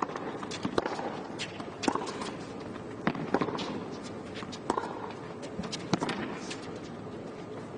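Tennis rally on a hard court: a serve struck near the start, then the ball hit back and forth by rackets about every one and a half seconds, with players' footsteps and shoe scuffs between the hits.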